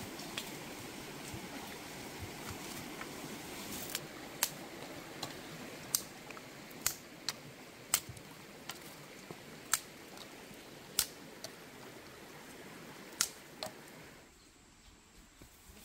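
About a dozen sharp, irregular knocks of a wooden stick being chopped by hand, spaced half a second to a second apart over a steady outdoor hiss. They stop about 14 seconds in and it turns quieter.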